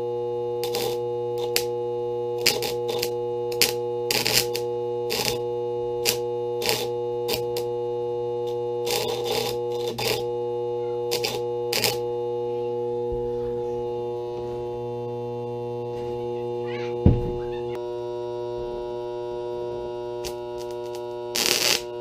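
Modified microwave oven transformer, powered up, humming with a steady, unchanging low electrical buzz, broken by scattered sharp crackles. Near the end there is a louder burst of crackling as its heavy secondary leads are brought onto a nail.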